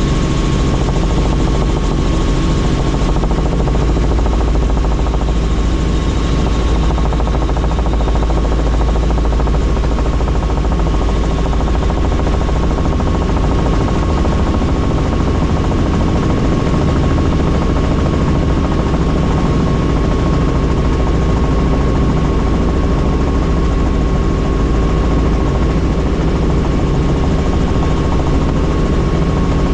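Helicopter in flight, its rotor and engine running loud and steady, with a constant high whine over the low drone.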